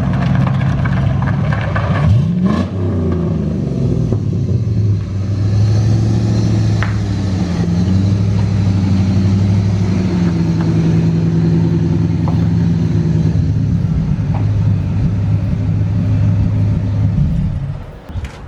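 Vehicle engine running while driving. The revs climb about two seconds in, then hold fairly steady with small rises and falls, and the sound drops away near the end.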